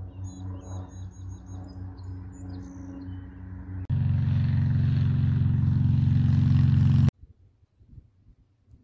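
Small single-engine propeller plane droning steadily overhead, with birds chirping several times. About four seconds in there is an abrupt cut to a louder, steady jet airliner engine noise, which cuts off suddenly near seven seconds, leaving near quiet.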